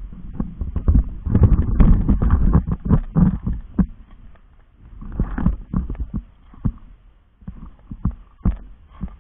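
Footsteps crunching on gravel mixed with the thumps and rubbing of a camera carried while walking. The knocks and crunches come irregularly, several a second, and ease off for a moment about seven seconds in.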